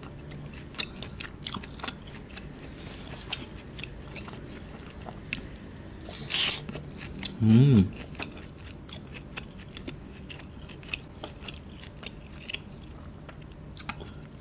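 Close-up chewing of sauced roast lamb, with soft wet clicks and smacks of the mouth. A short, loud hum of the voice comes about halfway through.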